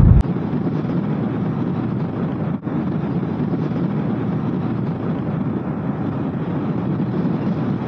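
Steady rush of wind and tyre noise from riding an electric motorcycle at speed, with no engine note. There is one brief dip about two and a half seconds in.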